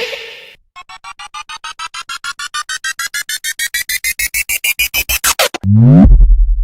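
Synthesized sound effects: a fast pulsing beep rising steadily in pitch for about five seconds, then a quick downward sweep into a loud, deep bass drop near the end.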